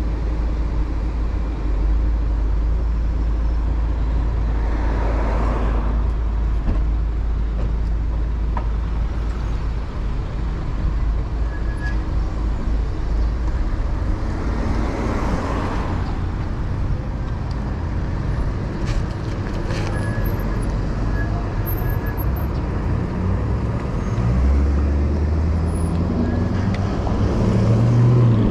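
Road traffic noise: car engines running and idling around a slow-moving e-bike, under a constant low rumble. Two vehicles swell past, about 5 and 15 seconds in, and a deep engine hum grows louder near the end.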